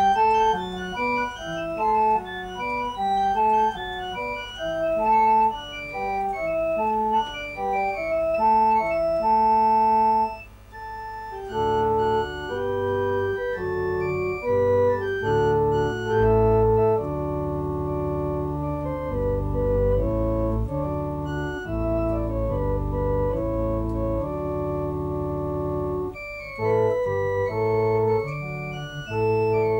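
Electronic organ tuned in just intonation playing a short motif. A brisk melody over chords in the upper register gives way about 11 seconds in to low held chords with deep bass notes, and the quicker upper line comes back near the end.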